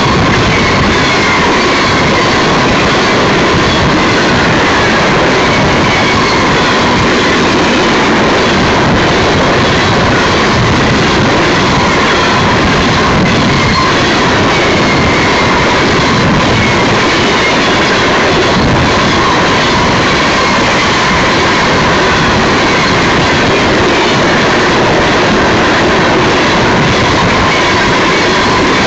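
Empty coal train's cars rolling past close by: a loud, steady clatter and rumble of steel wheels on the rails, with a thin steady tone running through it.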